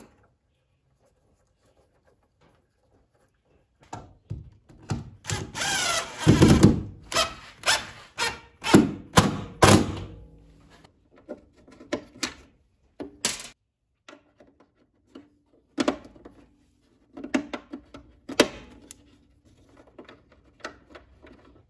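A cordless drill runs for about two seconds, then in several short trigger bursts, driving a bolt into the inverter's bottom mounting bracket. Scattered light knocks and clicks follow as plastic conduit fittings are handled and pushed into the holes in the bottom of the inverter cabinet.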